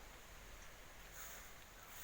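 Faint outdoor ambience, close to silence: a steady soft hiss with a thin high-pitched sound that swells and fades about once a second.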